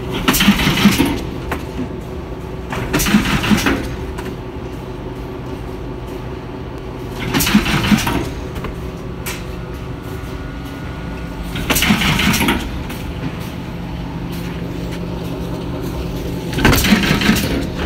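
Double-servo semi-automatic box nailing machine running with a steady hum, broken by five short, loud mechanical bursts roughly every four seconds as it works through its cycles.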